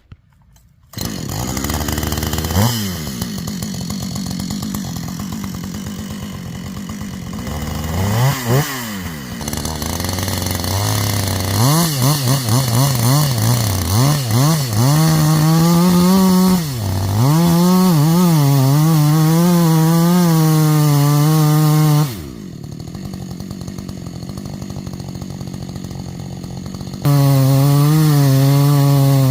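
Two-stroke chainsaw revving up and down a few times, then running steadily at full throttle. It drops back to a quieter idle partway through and is opened up to full throttle again near the end.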